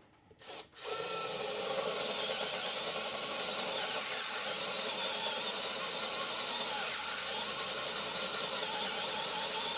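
A short click, then a Vessel 220USB P1 electric screwdriver starts up about a second in and runs steadily, turning a 5/16-inch twist drill bit into plywood.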